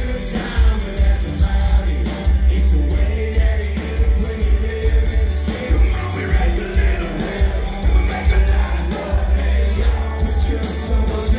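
Live country-rock band playing loudly: singing over acoustic guitars with a strong bass and a steady beat.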